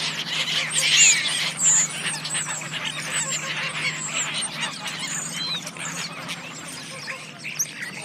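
Geese calling, many short overlapping calls from a group, loudest about a second in, over a low steady hum.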